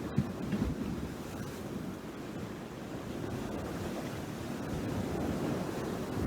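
Wind buffeting the microphone, a steady low rumble with a few thumps in the first second.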